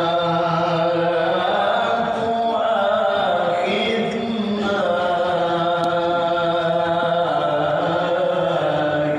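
A man's voice reciting the Qur'an in a melodic chant into a handheld microphone, drawing out long held notes with wavering ornaments.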